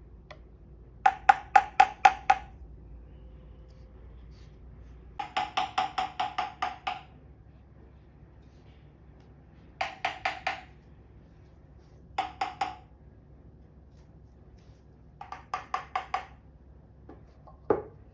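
A hard, ringing food container tapped rapidly, about five strikes a second, in six short bursts of three to nine taps each, the last a single tap near the end; the tapping is a food call to wake a sleeping golden retriever puppy.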